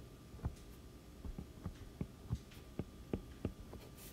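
Stylus tapping and stroking on a tablet's glass screen as lines are drawn: irregular light taps, about two or three a second, over a faint steady hum.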